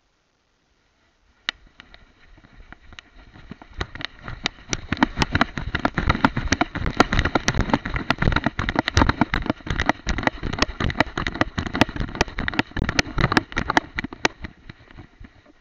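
Dense crackling and knocking from a camera strapped to a dog's head, rubbing against fur and grass as the dog moves. It starts faint about a second in, grows loud, and fades out near the end.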